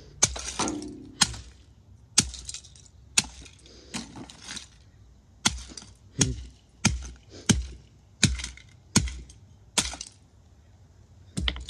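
Rubber mallet repeatedly smashing the broken plastic casing and circuit boards of a CD player radio on concrete. There are about a dozen sharp blows, roughly one a second, each followed by a brief clatter of loose pieces. The blows pause briefly near the end, then two more follow.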